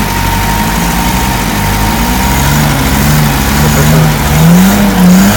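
A vehicle engine running, its pitch wavering as it is revved up and down, rising and falling near the end.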